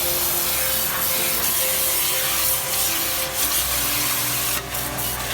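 Electric pressure washer (1600 W, 120 bar) spraying a high-pressure water jet, a steady hiss. About four and a half seconds in, the spray dips and stutters briefly.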